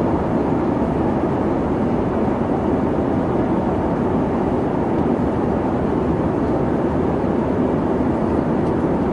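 Steady jet airliner engine drone, an even, unbroken noise with no rise or fall.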